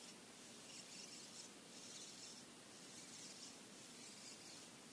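Near silence, with faint high-pitched chirping in short bursts that repeat about twice a second.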